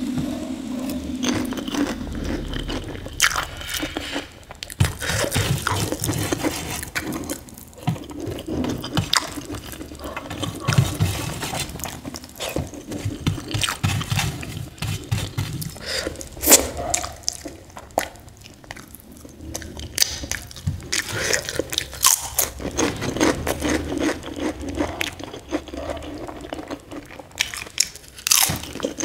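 Close-miked eating by hand: chewing and wet mouth sounds, with sharp crunches of fried papad and fingers scraping a steel plate.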